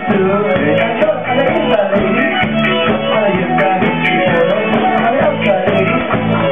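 Live band playing a song with a singer, over a steady bass line and beat.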